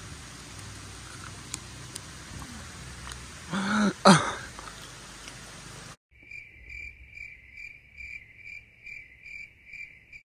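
Steady outdoor hiss with a short vocal outburst about four seconds in; then the background cuts out abruptly and a cricket chirps in clean silence, about three chirps a second, an inserted cricket sound effect.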